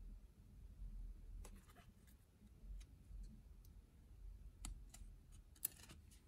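Faint clicks and light ticks of 1995 Fleer Metal football cards being flipped and slid past one another by hand, with one sharper click near the end.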